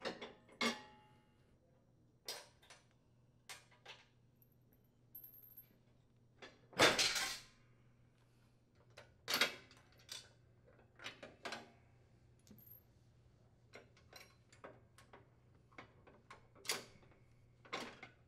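Sparse metallic clicks and clinks as the hairpin retaining pins and steel deck support arms of a riding mower are pulled and unhooked by hand, with a louder clattering clank about seven seconds in.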